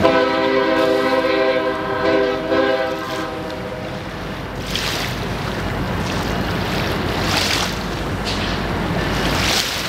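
Florida East Coast Railway diesel locomotive's air horn sounding one blast of several notes together, lasting about three and a half seconds as the train approaches the bridge.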